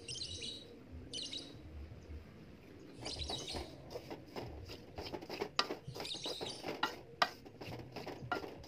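A spatula scraping and stirring dry pollard (wheat bran) in a metal wok while it is dry-roasted. It starts as a few short scratchy scrapes, then from about three seconds in becomes a quick, irregular run of sharp scrapes.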